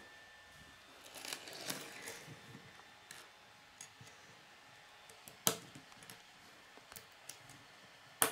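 Small plastic K'nex pieces handled on a wooden tabletop: faint rustling and scattered light clicks. There is a sharp snap about five and a half seconds in and another near the end, as a red rod is pressed into a yellow connector.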